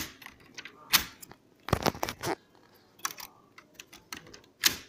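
A few sharp plastic clicks and knocks as the drive gear and mechanism inside an open Canon inkjet printer are handled with a tool. The loudest, longest clatter comes about two seconds in, and single clicks fall near one, three and just under five seconds.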